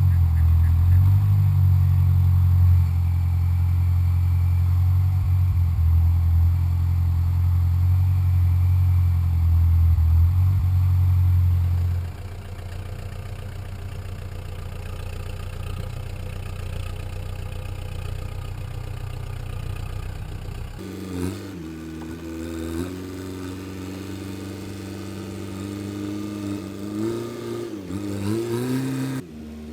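Homemade backhoe's engine running: a loud steady low rumble for the first dozen seconds, then quieter. From about two-thirds of the way in, the engine note rises and falls in pitch as the machine works.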